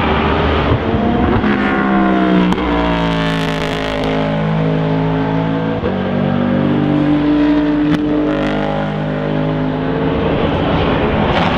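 Aston Martin V8 Vantage GTE race car's V8 engine running hard, its pitch gliding and stepping between gears, with a couple of sharp cracks at the changes.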